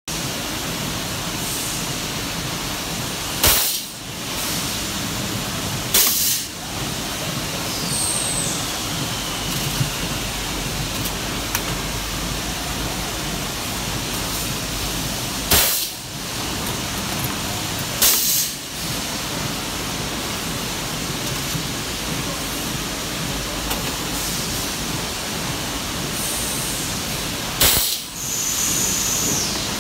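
Copper-aluminium tube resistance welding machine cycling: short, sharp bursts in pairs about two and a half seconds apart, repeating roughly every twelve seconds, over a steady machine and workshop noise.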